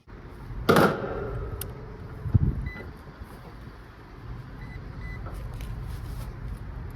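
A loud metal clank with a brief ring about a second in, then a duller thump, over a steady low rumble, with a few faint short high beeps.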